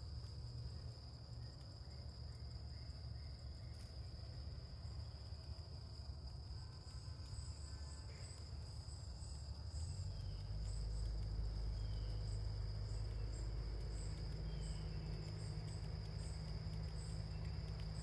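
Crickets trilling, one steady high-pitched drone, with a run of short, faint, higher chirps joining about seven seconds in. Under it a low rumble grows louder about ten seconds in.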